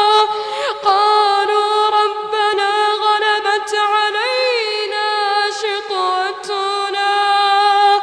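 A boy's voice in melodic Quran recitation (tajwid), drawing out long held vowels with turning ornaments: a brief dip about a second in, a rise and fall around four seconds, and a step in pitch near six seconds.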